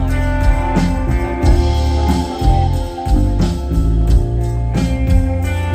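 Live rock band playing an instrumental passage: electric guitars over bass and drums, with no vocals.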